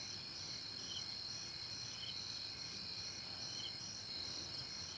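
Crickets and other night insects trilling steadily: a high, even drone that pulses about twice a second, with a faint separate chirp now and then.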